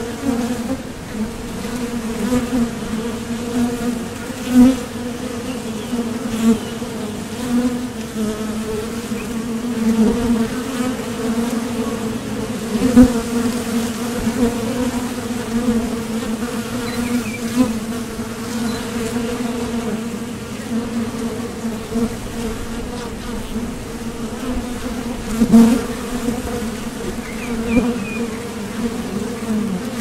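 A mass of honeybees buzzing: a steady, even-pitched hum of many wingbeats, with a few brief louder buzzes as single bees pass close.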